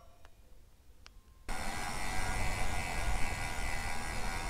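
A few faint clicks in near quiet, then about a second and a half in an abrupt switch to loud, steady wind and road noise from a road bike being ridden, with a heavy low rumble.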